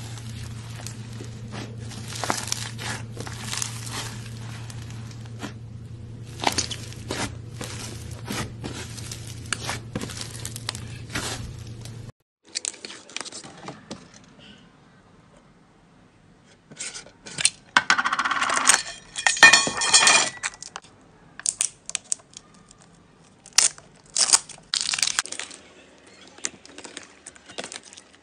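Hands squeezing and kneading slime: sticky crackling and popping clicks over a steady low hum. About twelve seconds in the hum stops, and a clear slime is pressed with quieter squishing and then bursts of louder, sharp wet pops.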